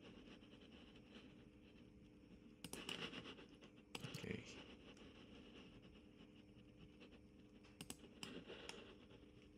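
Near silence: faint room hum with a few soft clusters of clicks and scuffs, about three seconds in, four seconds in and eight seconds in, typical of a computer mouse and keyboard being handled.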